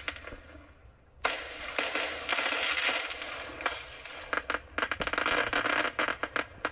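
Fireworks: a sharp burst about a second in, then crackling stars popping in rapid, irregular clicks, densest in the second half.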